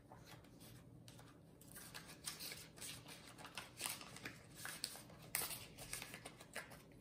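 Faint, irregular paper rustling and crisp ticks as a small paper sticker sheet and instruction booklet are handled in the fingers.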